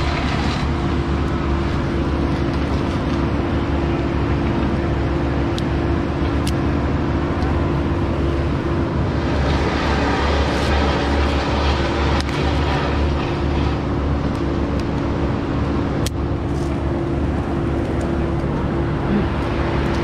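An engine running steadily at constant speed, a low drone with a hum, with a few light metal clicks from the climbing and rigging hardware now and then.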